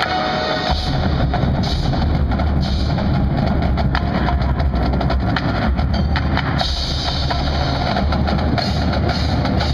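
Marching band playing a loud, percussion-driven passage: a held band chord cuts off less than a second in, and then drums and mallet percussion play a fast, dense rhythm.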